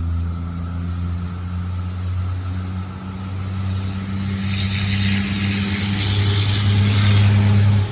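Road traffic: a motor vehicle's engine drone, steady and low, growing louder toward the end as it approaches.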